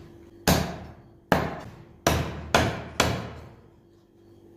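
A large kitchen knife chopping through a carp onto a thick wooden chopping block: five sharp strikes, the last three in quick succession about half a second apart.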